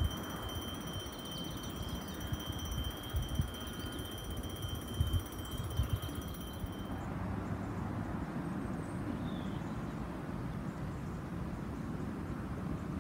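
A steady high-pitched electronic alarm tone that cuts off suddenly about seven seconds in, over a low rumble with a few bumps.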